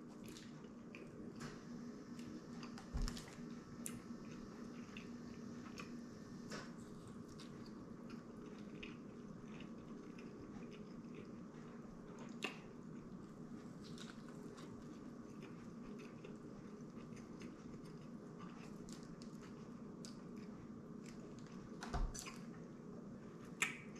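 A person chewing and biting a bacon cheeseburger with soft, wet mouth sounds and faint small clicks over a steady low hum. There is a soft thump a few seconds in and another near the end.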